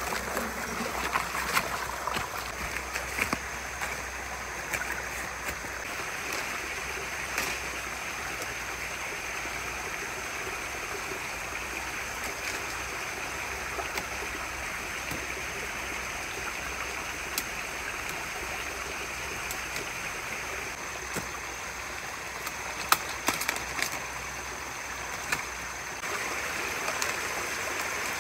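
Steady rush of flowing water, with a few light knocks scattered through it, the sharpest about 23 seconds in.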